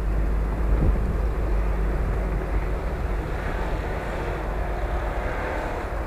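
Small off-road SUV's engine running under load as it drives up a snowy track, tyres churning through the snow; the sound slowly fades as it moves away.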